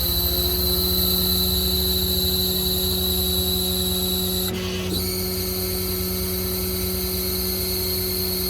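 Ram 5500's 6.7 Cummins inline-six diesel running steadily while the truck's hydraulic system, working the outriggers, gives a high-pitched steady whine. The whine breaks off for about half a second around the middle and then resumes.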